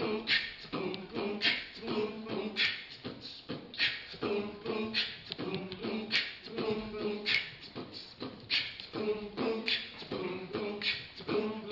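A cappella beatboxing: a sharp percussive hit a little over once a second, with a pitched vocal line in between.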